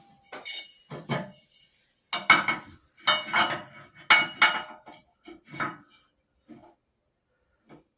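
Lengths of galvanized steel pipe clanking and clinking against each other and the steel bucket as they are handled and set in place. The knocks are irregular and ringing, come thick over the first six seconds, then one faint one near the end.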